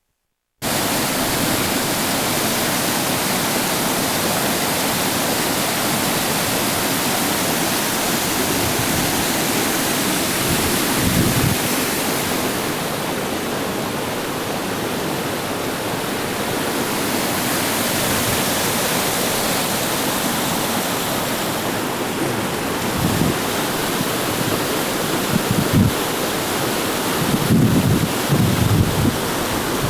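Waterfall on a full creek: a steady rush of water that cuts in suddenly about half a second in. Low gusts of wind buffet the microphone now and then, most often in the last few seconds.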